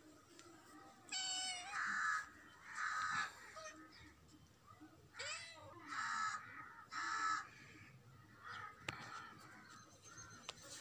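Kittens meowing: a series of short calls, about six of them roughly a second apart, then a couple of fainter ones near the end.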